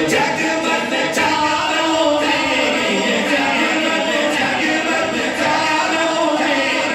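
A man singing a naat unaccompanied into a handheld microphone, in long drawn-out, gliding notes.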